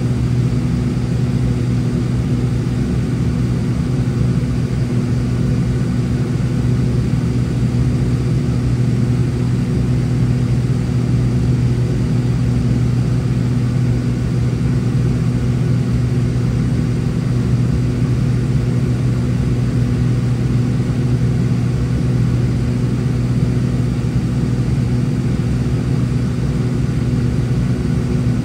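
Cessna 402C's twin turbocharged Continental six-cylinder piston engines and propellers droning steadily, heard inside the cabin: an even hum that holds one pitch throughout.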